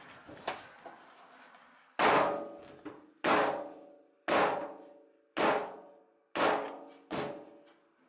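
A lump of clay slammed down hard onto a wooden wedging board six times, about once a second, each impact ringing on and fading as the board resonates. Before the slams, quieter soft knocks of the clay being pressed and kneaded.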